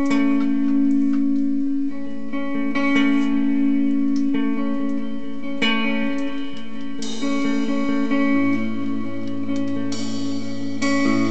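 Electric guitar strumming ringing chords, with drums played along, in a live basement jam; a lower held note joins about two-thirds of the way through.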